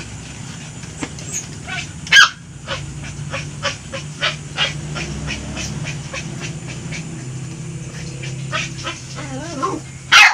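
Dogs barking and yipping: one sharp bark about two seconds in, then a run of quick yips about three a second, and a wavering whine near the end.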